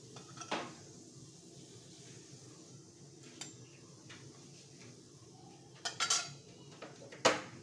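Steel spatula clinking and scraping against a cast-iron kadai and a steel plate as fried pakoras are lifted out. A handful of sharp metallic clinks, with a cluster about six seconds in and the loudest just before the end.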